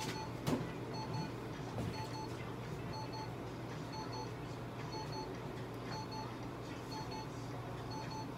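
Veterinary laser therapy unit beeping in short pips about once a second while its probe emits, over a steady low hum. A single sharp knock about half a second in.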